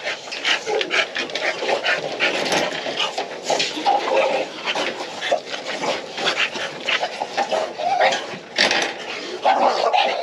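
Bulldogs moving about and jostling close to the microphone: a busy run of quick clicks, scuffs and shuffles, with dog sounds mixed in.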